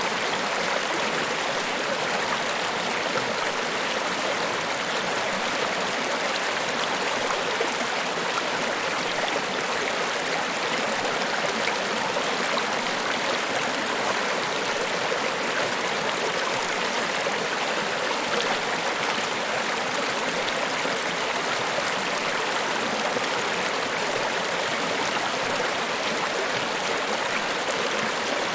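Niagara Falls: steady, unbroken rush of falling water, an even hiss with little deep rumble and no changes.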